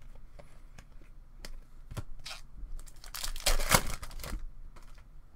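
A foil trading-card pack wrapper torn open, a loud crinkling rip a little over three seconds in that lasts about a second. Light clicks of cards being handled come before it.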